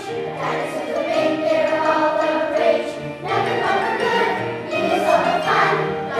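Children's choir singing a song together over a musical accompaniment with steady low notes.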